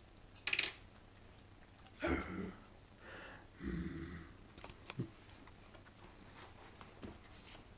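Five-week-old Yorkshire terrier puppies moving about on a tile floor: light clicks of small claws on the tiles, and a few soft, short sounds about half a second, two and four seconds in.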